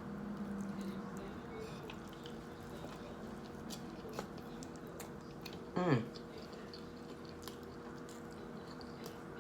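Soft chewing with small wet mouth clicks, over a steady background hum. About six seconds in there is one short, falling vocal sound, like an "mm".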